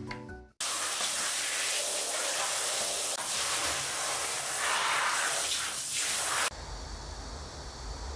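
Water spraying hard onto a scrub sponge: a steady hiss of spray that starts abruptly just after the opening and cuts off suddenly about six and a half seconds in. A few notes of soft background music fade out at the very start.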